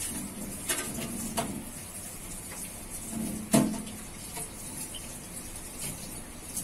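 A few light knocks and clicks, the loudest about three and a half seconds in, over a steady background hiss.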